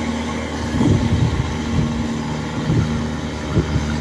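Kubota DC105X combine harvester's diesel engine running steadily under load while cutting rice, heard through a modified aftermarket exhaust with a hissing, airplane-like note. There are a couple of brief louder surges.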